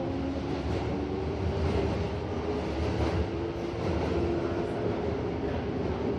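Toei Asakusa Line 5300 series subway car running, heard from inside the car: a steady rumble of wheels on rail with the tones of its GTO-thyristor VVVF inverter drive shifting slightly in pitch.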